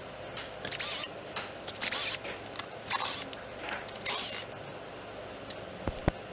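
Work on an engine being stripped: several short scraping, rustling noises over the first four or so seconds, then two sharp knocks in quick succession near the end.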